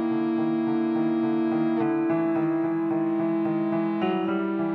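Contemporary chamber music for alto saxophone, electric guitar and piano: long held notes over a steady repeated piano figure. The held pitches shift about two seconds in and again near the end.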